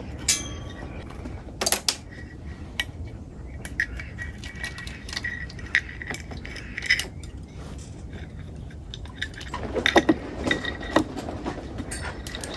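Metal hand tools and engine parts clinking and tapping while a cylinder is fitted over the piston of a dirt bike engine. Scattered single clinks, some with a short metallic ring, with a busier flurry of taps near the end.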